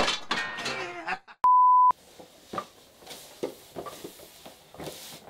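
A woman's voice, then a steady beep about half a second long: a censor bleep over a word. After it come faint knocks and scuffs as a flat-pack cardboard box is moved on the floor.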